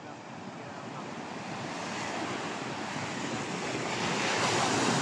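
Sea surf washing and breaking on a sandy beach, an even rushing that grows steadily louder.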